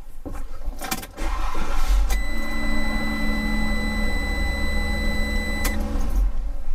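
3.6 Pentastar V6 engine starting about a second in and settling into a steady run, driving its newly installed serpentine belt, idler pulleys and tensioner pulley. A steady high-pitched electronic beep sounds from about two seconds in until nearly six seconds.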